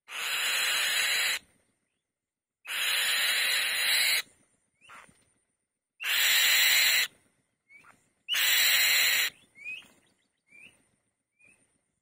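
Female Elanus kite on the nest giving four long, harsh, hissing screeches, each lasting a second or more, separated by short pauses. Faint short rising chirps come between the later screeches and trail on near the end.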